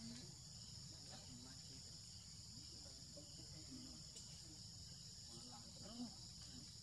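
Faint, steady high buzzing of an insect chorus in the forest, with soft short calls now and then, and a small sharp sound about six seconds in.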